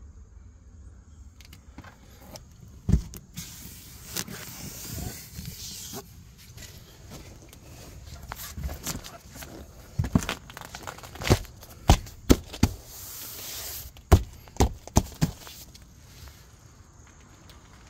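Sharp knocks and clatters of someone handling things and moving about a boat's centre console, with stretches of rustling hiss between. The knocks come thickest in a run of about two a second between ten and fifteen seconds in.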